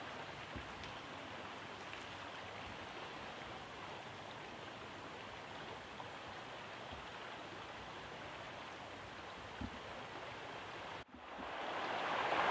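Steady rushing of a river flowing near the tree stand, with one small knock about ten seconds in. Near the end the sound cuts off abruptly, then comes back louder and rising.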